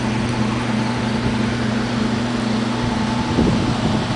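Combustion-air blower of a Nature's Comfort GT500 gasification wood boiler running steadily at full load: a constant low hum over an even fan rush.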